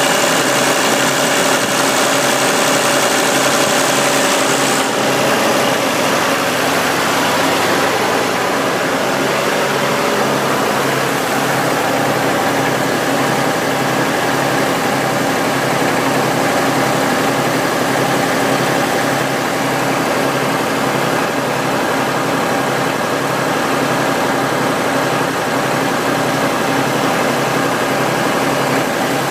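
Massey Ferguson 35X tractor engine idling steadily with an even throb.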